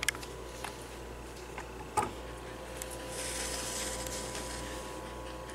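Handling noise: a single knock about two seconds in, then a soft rubbing for a second or so, over a faint steady hum.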